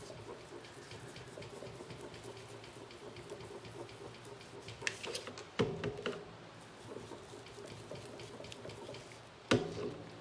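Round ink-blending tool rubbed in circles over card stock, making a steady soft swishing. There are a couple of sharp knocks around the middle and a louder one near the end.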